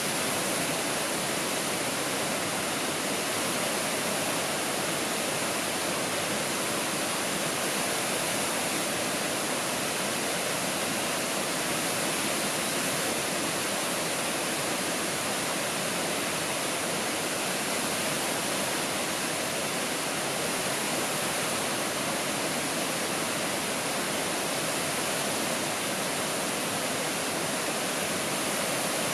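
A waterfall, falling water rushing steadily without a break.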